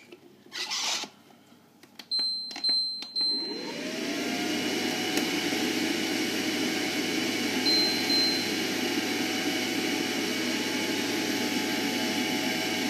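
Thermochef cooker-mixer: a few clicks, then a beep about two seconds in. Its motor then spins up with a rising whine and settles into a steady run, stirring the cooking jam. A short beep comes near the middle.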